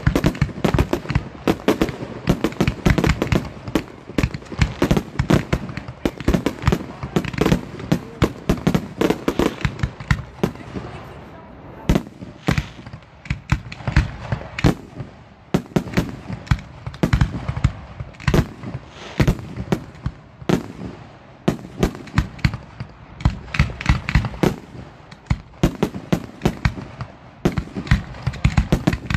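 Aerial fireworks shells launching from mortars and bursting overhead in a rapid, uneven string of bangs and cracks. The bangs come thick at first, thin out for a few seconds around the middle, then build up again.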